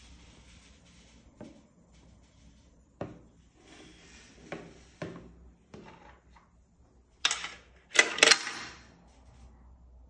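Coins going into a timer box's multi-coin acceptor: a few light knocks, then three loud metallic clinks close together, each rattling briefly as the coin drops through, about seven to eight and a half seconds in.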